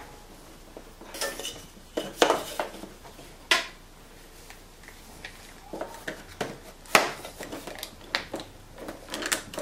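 Wood and a bar clamp being handled on a table saw jig: a series of separate knocks and clicks as a workpiece is set in place and clamped, with quicker clicks near the end. The saw is not running.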